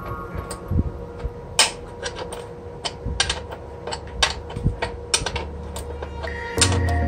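Irregular light metallic taps and clicks from workshop handwork on metal parts, one or two a second, over a low steady hum. Background music comes back in near the end.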